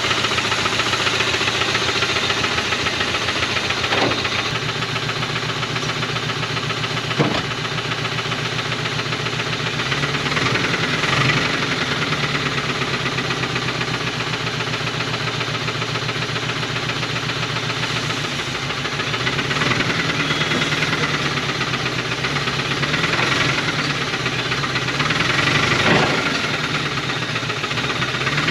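1980 Dodge truck's 360 V8 running with a steady rod knock, picking up and dropping back a few times; the knock is the sign of a worn or failing connecting-rod bearing. Two sharp bangs sound about four and seven seconds in.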